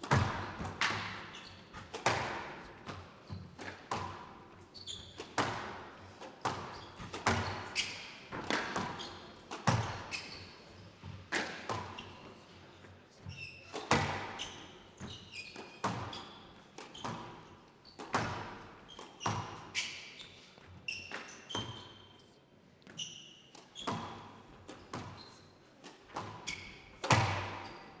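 A squash rally: racket strikes and the ball smacking off the front and side walls about once a second, echoing in the hall, with short squeaks of court shoes on the floor. The hardest hit comes near the end.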